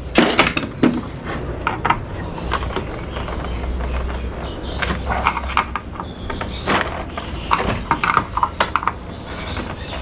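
Screwdriver scraping and prying at a crystal oscillator soldered to a circuit board: irregular clicks and scrapes, with a quick run of sharp clicks about seven to nine seconds in.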